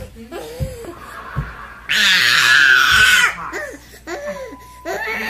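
A toddler's long, high-pitched squeal, about a second and a half, falling in pitch at the end. A few low thumps come before it, with softer little vocal sounds after.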